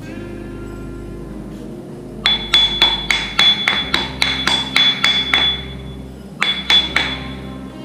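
A small rock hammer tapping a cave's rock face to sound it out for a bolt placement. About two seconds in comes a run of quick, ringing taps, about four a second. After a short pause there are three more taps near the end.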